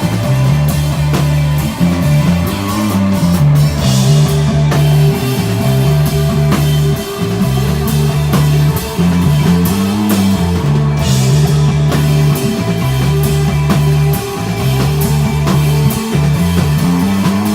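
A rock band playing live: a bass line loops a low riff every couple of seconds under drum kit and cymbals and sustained, echoing electric guitar, a slow psychedelic desert-rock groove.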